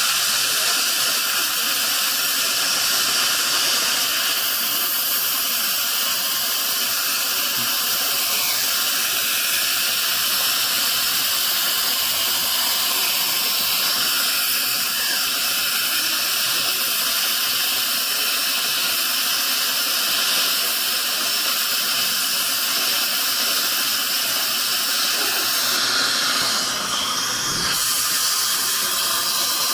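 Dental operatory equipment hissing steadily and loudly, with a brief change in the hiss near the end.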